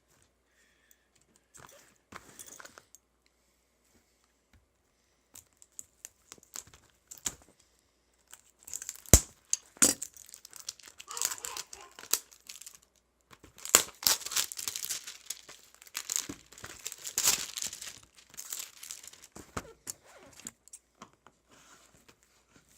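Packaging being torn open and crinkled as a box of trading card packs is unwrapped: a few light clicks and rustles at first, then about twelve seconds of busy tearing and crinkling with sharp snaps, dying down near the end.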